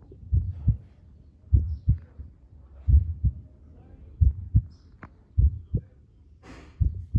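Heartbeat sound effect: pairs of low thuds, lub-dub, repeating about every second and a quarter. A brief hiss comes about six and a half seconds in.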